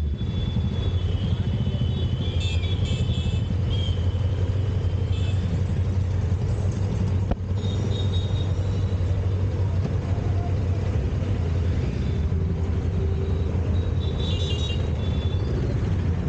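Honda Africa Twin 1100 DCT's parallel-twin engine and wind noise while riding: a steady low rumble. Brief high-pitched tones sound over it a couple of seconds in and again near the end.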